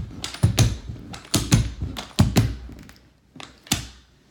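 Carpet knee kicker being struck with the knee over and over, stretching carpet onto the tack strip: a double thump about once a second, then two lighter knocks near the end.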